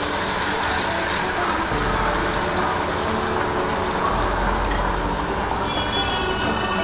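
Pinwheel samosas deep-frying in hot oil in a kadai: a steady sizzle with many small crackles from the bubbling oil.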